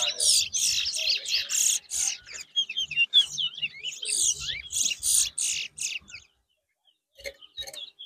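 Towa-towa (chestnut-bellied seed finch) singing a rapid, twittering, warbling song in quick phrases of fast pitch sweeps. The song stops about six seconds in, and a few short notes follow near the end.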